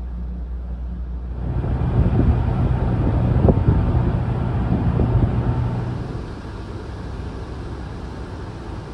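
Wind noise on the microphone over a low rumble beside a docked car ferry. About six seconds in it gives way to a quieter, steady hum inside the ferry's passenger cabin.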